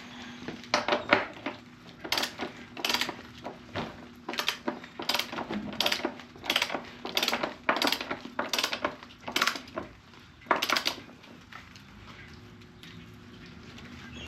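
Sharp metallic clinks of hand tools, about fifteen of them at a fairly even pace that stop about eleven seconds in.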